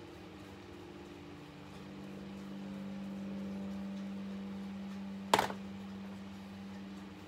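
A steady low hum that grows a little louder in the middle, with one sharp knock about five seconds in.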